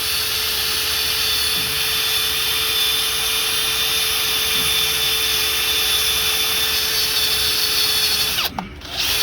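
Steady motor whir with a constant hum, unchanging, dropping out briefly near the end.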